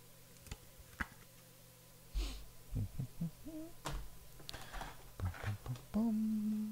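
Hard plastic toploader card holders clicking and knocking softly as they are handled and set down on a table mat, a few separate clicks spread through. Near the end a man hums a short held note.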